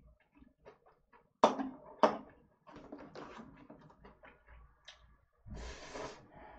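Eating instant cup noodles: two sharp knocks about a second and a half in, as a spoon and the paper noodle cup are handled on the table, then a slurp of noodles about five and a half seconds in.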